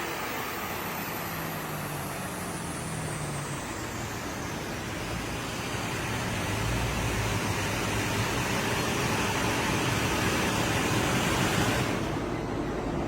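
Car on a chassis dyno winding down after a pull: tyres and rollers spinning with a steady rushing noise and a thin whine that falls in pitch over the first few seconds, the 6-litre V8 no longer revving. The high hiss cuts off suddenly near the end.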